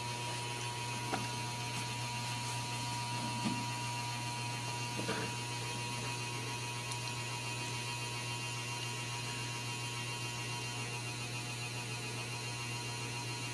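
Steady low electrical hum with a thin steady tone above it, and a few faint brief sounds about one, three and a half, and five seconds in.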